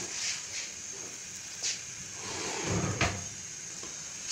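Kitchen knocks at a gas stove with a paratha cooking on an iron tawa: a sharp click about a second and a half in, then a dull thump with a clack just before three seconds, over a steady faint hiss.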